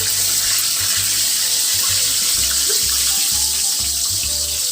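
Fish frying in a pan of hot oil: a loud, steady sizzle.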